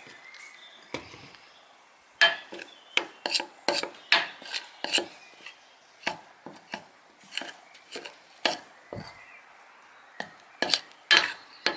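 A spoon tapping, clinking and scraping against a bowl while stirring corn flour into hair conditioner, in irregular strokes a couple of times a second from about two seconds in.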